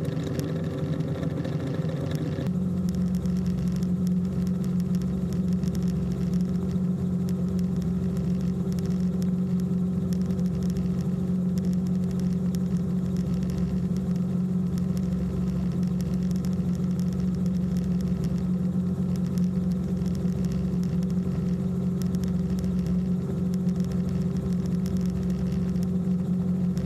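Steady engine drone of a light aircraft in flight, heard from inside the cabin. Its note settles into a steadier hum a couple of seconds in.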